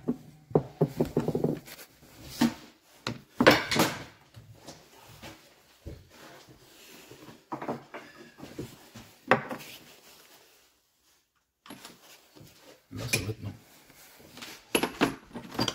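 Scooter engine parts being handled during dismantling at the clutch: irregular knocks and clatters of metal parts, with a short quiet gap about ten seconds in.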